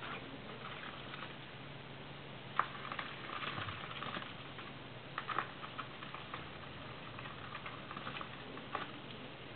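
Scattered small clicks, taps and scratches from a tokay gecko and its dubia roach prey in the terrarium, with one sharper click about two and a half seconds in, over a low steady hum.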